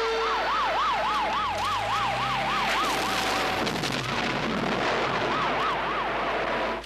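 Fire engine sirens: a fast yelp siren rising and falling about four times a second over a steady wail whose pitch slowly sinks. The yelp breaks off for about a second past the middle and comes back. A truck engine revs up underneath, all over a loud, noisy rush.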